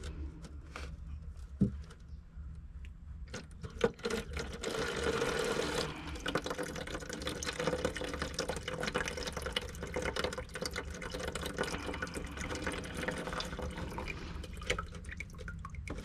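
Water draining out of the open end of a cut copper supply pipe: a few separate drips at first, then from about four seconds in a steady trickle with dripping. This is the residual water running out of the line after the supply was shut off.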